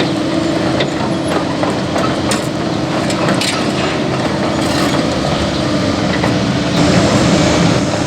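Cat 308E excavator's diesel engine running steadily under load, with scattered sharp cracks and knocks of the bucket breaking up road material, most of them in the first few seconds.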